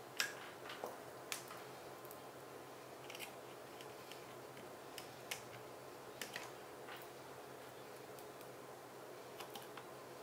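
Scattered light clicks and taps of a small screwdriver and metal parts on a Vivitar V4000S 35mm SLR camera body as it is screwed back together, at irregular intervals, the sharpest about a quarter second in.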